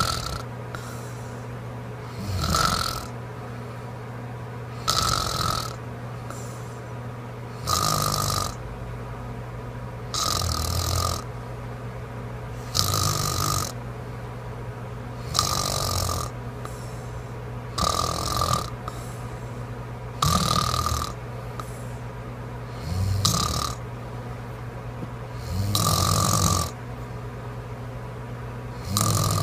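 A sleeping woman snoring in a steady rhythm, one rasping snore about every two and a half seconds.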